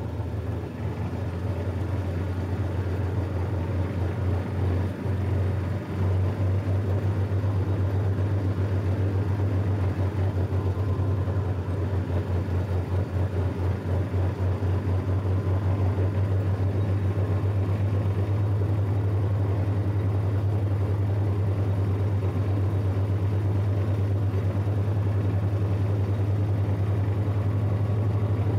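A small tractor's engine running steadily as it drives, with a regular low pulse from its firing strokes.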